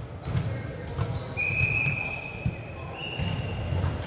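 Indoor volleyball play in a gym hall: a volleyball struck with sharp thuds, and a few brief high squeaks typical of sneakers on the court floor, with players' voices faint underneath.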